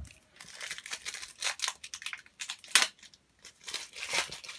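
Wrapper of a Panini FIFA 365 trading-card booster pack crinkling and tearing as it is ripped open, in irregular rustles with one sharp crackle near the middle.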